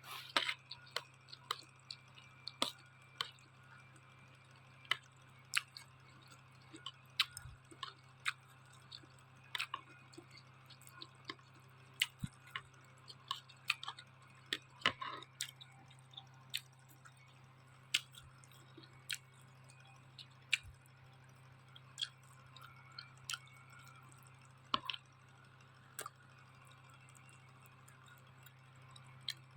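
A person eating noodles close to the microphone: irregular wet mouth clicks and smacks of chewing, about one or two a second, over a steady low hum.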